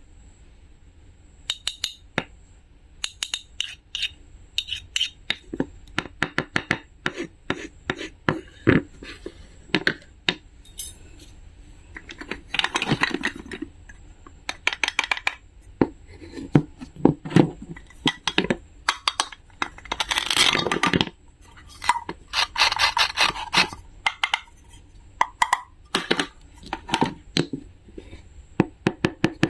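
Small hard objects being handled: a quick, irregular run of clicks and taps, with a few longer scraping or rubbing stretches.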